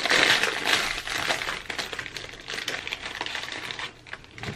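Plastic wrapper of a pack of Dutch speculaas cookies crinkling and crackling as it is pulled open by hand. The crackle comes in bursts and eases off near the end.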